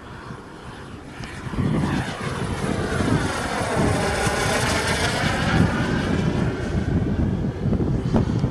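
Radio-controlled scale model Jet Provost T5 flying a pass, its jet engine growing louder from about a second and a half in and staying loud. Around the middle, as it passes closest, a swishing sweep runs through the tone.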